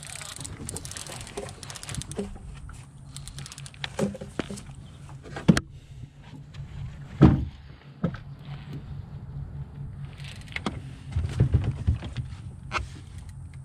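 Sharp knocks and clatter against an aluminum jon boat as a fishing rod is handled, the loudest two about five and a half and seven seconds in and a cluster near the end, over a steady low hum.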